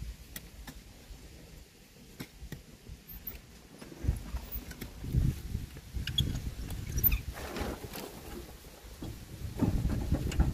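A wheelbarrow loaded with soil rolling and knocking over a rough dirt path, starting about four seconds in. It is tipped near the end so the soil slides out onto a heap.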